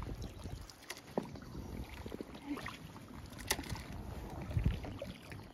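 Kayak paddles dipping into lake water, with small irregular splashes and drips over a steady low background rush.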